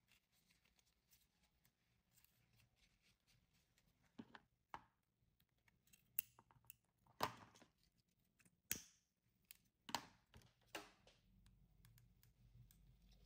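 Scissors snipping satin ribbon, a string of short sharp snips and clicks starting about four seconds in, amid faint handling of the ribbon and metal hair clip.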